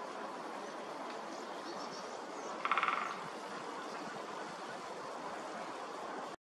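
One short, fast drum roll of a woodpecker about two and a half seconds in, over a steady rushing background noise.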